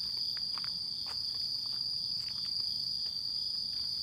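Steady high-pitched chorus of night insects, with scattered soft footsteps on a gravel path.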